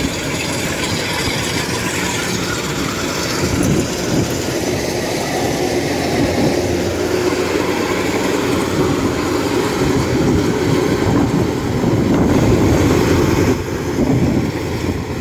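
Kubota DC-93 combine harvester cutting rice: its diesel engine runs steadily under load, with the clatter of the cutting header and threshing machinery.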